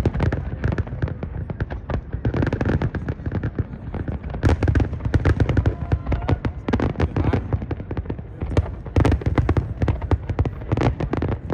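Fireworks display: a dense, continuous barrage of sharp cracks and bangs, with louder clusters about four and a half seconds in and again about nine seconds in.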